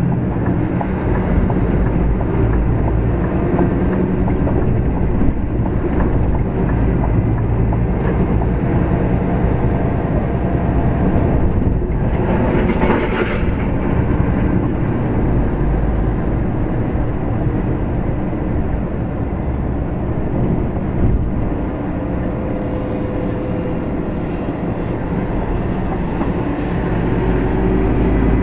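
Steady cab noise from an HGV driving slowly on the move: diesel engine running under the low rumble of the tyres and cab, with a brief hiss about twelve seconds in.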